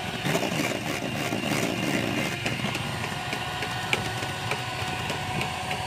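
A small motor running steadily with a constant whine, with clattering in the first couple of seconds.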